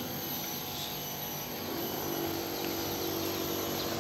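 Steady outdoor background noise: a low drone with a thin, constant high-pitched tone above it.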